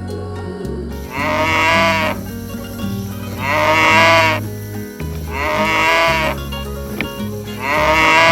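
Cattle calling four times in loud, drawn-out bawls about two seconds apart, each falling slightly in pitch at the end, over background music.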